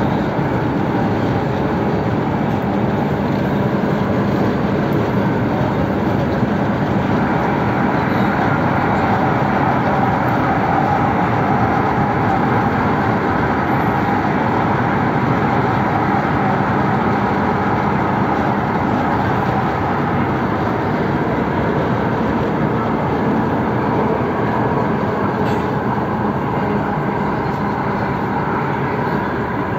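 MTR East Rail Line train running at speed, heard from inside the carriage: a steady, even rumble of wheels on rail with a faint steady hum.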